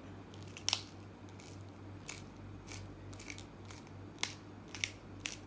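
Wooden pepper mill twisted by hand, grinding black peppercorns: a faint, irregular scatter of small crunches and cracks.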